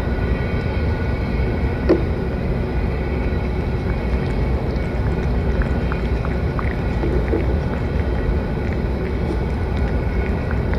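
Steady low outdoor rumble with a few small clicks and smacks from a cat eating wet food off a metal plate.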